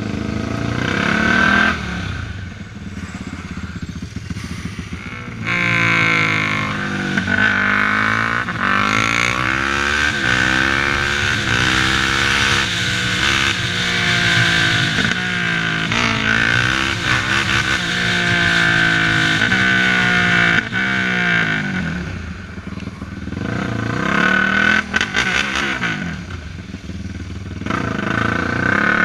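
Yamaha sport quad's engine under way, first at low revs, then from about five seconds in accelerating hard for some fifteen seconds, its pitch climbing and dropping back again and again as it runs up through the gears, before easing off near the end.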